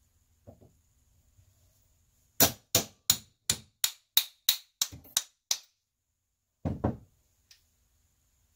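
Ball peen hammer striking a 9/16 socket held against a piston's floating wrist pin to drive the pin out of the LS piston and rod: about ten sharp metallic strikes, roughly three a second, beginning a couple of seconds in. A duller pair of knocks follows shortly after the strikes.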